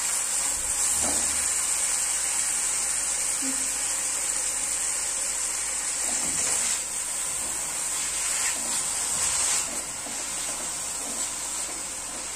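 Chopped garlic sizzling in hot oil in a metal kadai, a steady hiss, with a steel spoon scraping the pan now and then. The sizzle grows quieter near the end, as the greens are stirred in over it.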